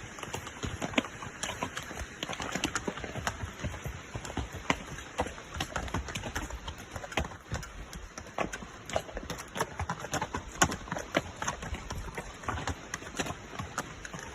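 Hoofbeats of a gaited Tennessee Walking Horse moving along, a quick, uneven stream of clip-clops.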